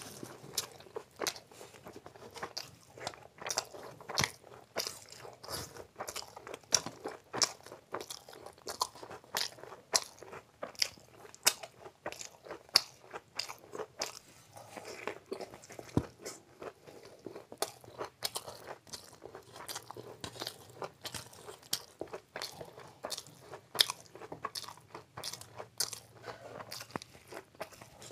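Close-miked eating sounds of a man chewing and biting puri and spicy food: a quick, irregular stream of wet mouth smacks, clicks and crunches.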